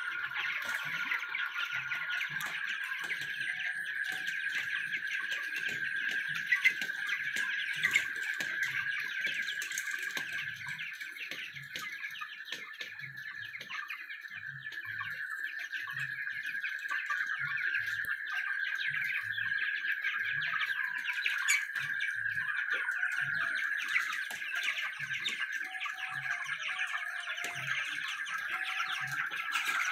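A large flock of young broiler chickens peeping steadily, a dense chorus of many overlapping high cheeps.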